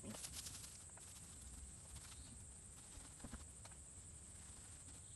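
Near silence: faint outdoor ambience with a steady high hiss and a few light scattered taps near the start and about three seconds in.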